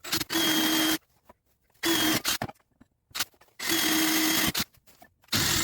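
Handheld power drill running in four short bursts, each with a steady motor whine, drilling holes at punched divots in metal.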